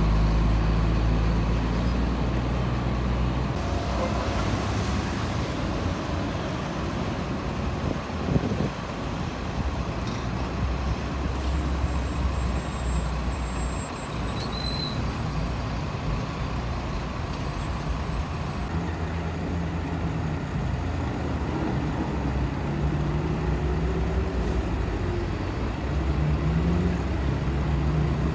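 Heavy diesel semi-truck engines running amid road traffic, with a hiss of air brakes about four seconds in and a single sharp knock a little after eight seconds. Near the end an engine climbs in pitch as it pulls away.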